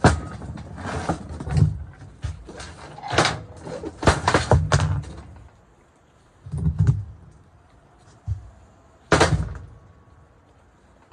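Heavy metal motor parts, an armature and a steel housing, clunking and knocking as they are handled and set down on a wooden workbench. A quick run of knocks for about five seconds, then a few separate thuds, the loudest about nine seconds in.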